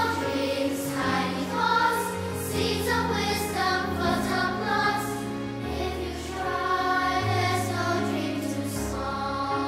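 Children's choir singing a slow song in unison, over sustained low accompaniment notes.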